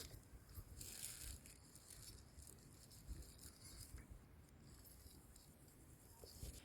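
Near silence, with a brief faint rustle about a second in and a few soft ticks.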